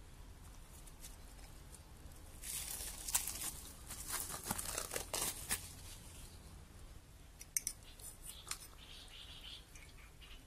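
Plastic cling film crinkling and crackling for about three seconds as it is peeled off a glass tumbler, followed by a few light clicks.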